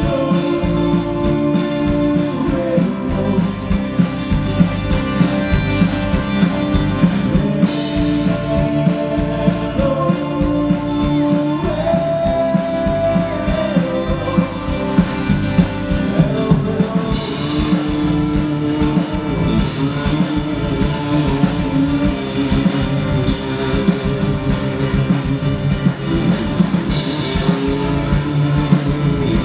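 A rock band playing live: acoustic and electric guitars over a drum beat, with sustained, bending lead notes.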